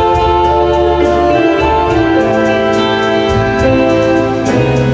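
Instrumental music playing, with held chords that change every second or so.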